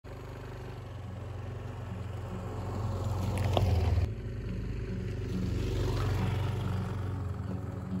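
Yamaha Aerox scooter's engine running as it rides up a dirt track, growing louder to a close pass just before four seconds in. After a sudden break it swells again as it passes a second time and then fades as it rides away.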